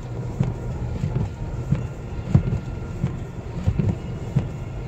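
Car driving through deep snow, heard from inside the cabin: a steady low rumble of engine and tyres with irregular short knocks as the car ploughs through the snow.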